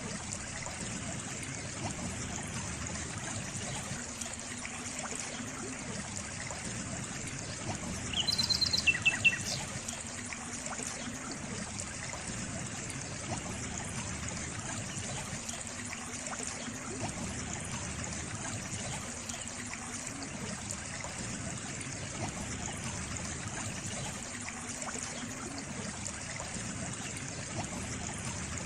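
A stream trickling and flowing steadily. About eight seconds in, a bird gives a quick run of high chirps that step down in pitch.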